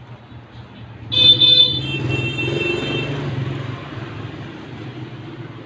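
A vehicle horn honks briefly about a second in, then a passing vehicle swells and slowly fades.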